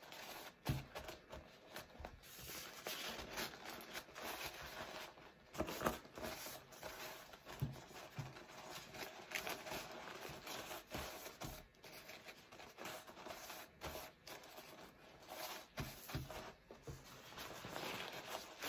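Sheet of blue sterilization wrap being folded by hand around a bowl, crinkling and rustling steadily with irregular crackles. A few soft knocks are heard throughout as hands press the bundle against the counter.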